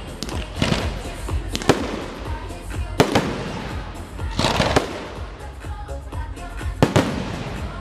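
Aerial firework shells bursting overhead: several sharp bangs a second or two apart, each followed by a trailing echo, the loudest about three seconds in.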